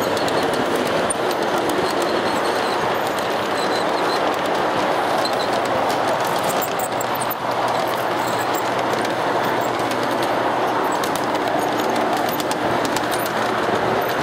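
G scale model freight cars rolling past on the track: a steady rumble of wheels on the rails, with light clicks from the wheels and rail joints that come more often near the end.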